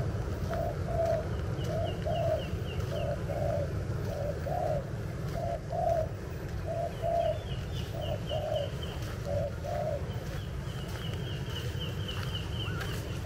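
A dove cooing a repeated two-note call, about once a second for most of the stretch. A second bird's quick, high run of chirps comes in three times, over a steady low rumble.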